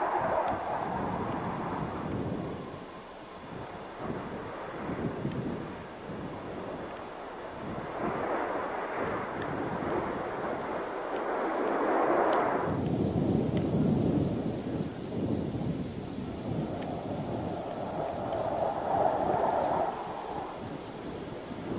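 Distant jet noise from Blue Angels F/A-18 Hornets in an air show display, a steady rushing roar that swells and fades as the jets pass, loudest a little past the middle.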